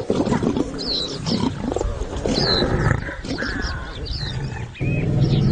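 Lions growling, with a deeper, steadier growl starting near the end. A bird's short falling calls repeat over it.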